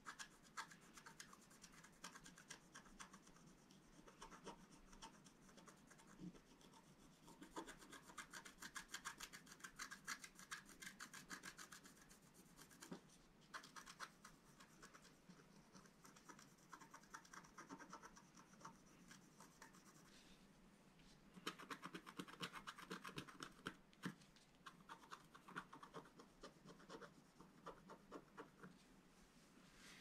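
Faint, dry scratching of a wooden scratch stylus scraping the black coating off a scratch-art sheet, in quick short strokes with brief pauses.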